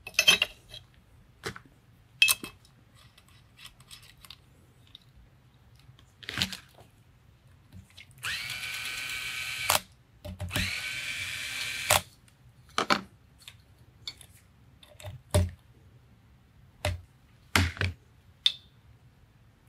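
Cordless electric screwdriver running in two bursts of about a second and a half each, driving the scope rail screws down into the rifle's receiver. Short clicks and knocks of tools being handled come before and after.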